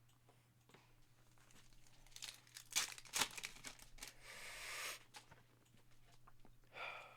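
Trading-card packaging being torn open and crinkled, starting with a cluster of sharp clicks, then a rustling tear lasting about a second, and another short crinkle near the end.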